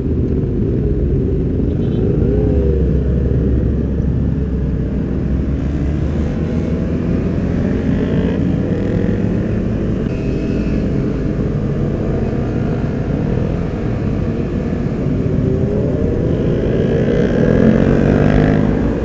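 A Honda CBR250RR and the motorcycles around it pull away and accelerate, over steady road and wind noise. The engine pitch rises and falls several times with gear changes, and the sound grows louder near the end.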